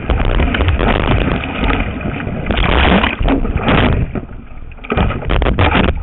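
Surf whitewater rushing and splashing around a surfboard, close to a board-mounted camera's microphone, with heavy buffeting on the mic. It eases off about four seconds in, then comes back as a run of sharp splashes near the end.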